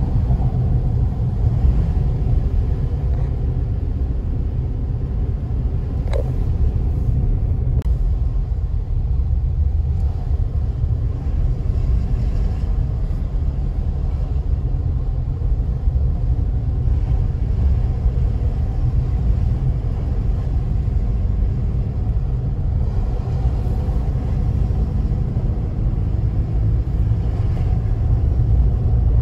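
Steady low rumble of a car driving on the road, engine and tyre noise heard from inside the cabin, with a single brief click about six seconds in.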